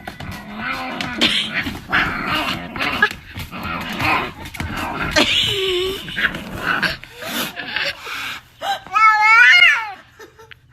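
A dog growling and snarling for several seconds, then a loud wavering cry about nine seconds in.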